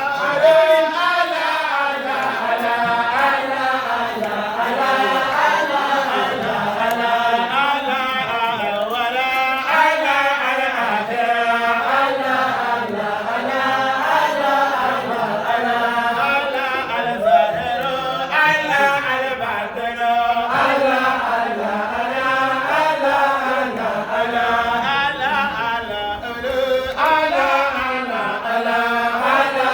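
Many voices chanting an Islamic devotional dhikr together, steady and unbroken.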